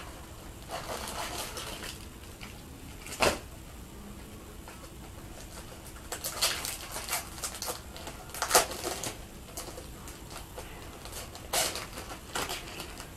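Rustling and handling of plastic product packaging as it is opened, with a few sharp clicks and snaps, the loudest about eight and a half seconds in.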